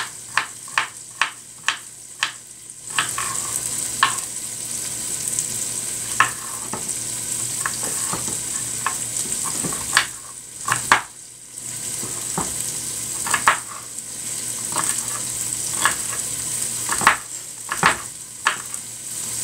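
Knife chopping celery on a cutting board, at first about two or three even chops a second, then scattered single strokes. Under it, chicken sizzles in a hot pot, the sizzle getting louder about three seconds in.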